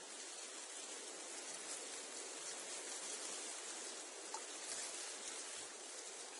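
Reeds and sedge rustling steadily in the wind, a dense dry hiss of stems and leaves brushing together, swelling slightly now and then.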